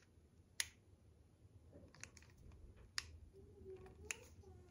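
A few sharp, separate clicks, about a second apart, from the thumb safety of a KWA 1911 Mark II gas blowback airsoft pistol being flicked as it is handled.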